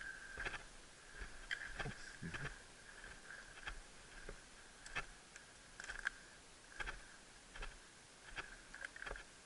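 Footsteps crunching on dry dirt and brush at a walking pace, a step roughly every half second to second, over a faint steady high-pitched hum.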